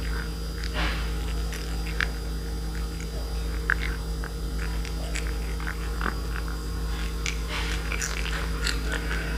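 A kitten chewing and crunching fried fish, with small irregular clicks, over a steady low hum.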